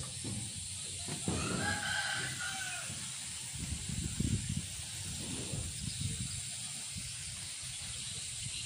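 A rooster crows once, about a second and a half in, a single drawn-out call of a bit over a second, over a steady background hiss and low rumble.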